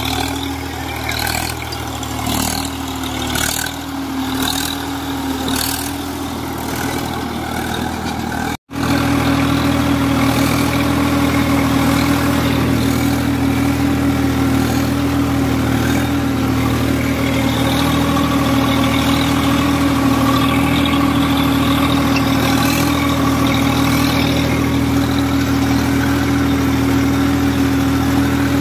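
Swaraj 855 tractor's diesel engine running steadily under load while working a rotavator through the soil. At first it is heard from a distance, with a faint click about once a second. After a sudden cut it is heard up close beside the engine, louder and steady.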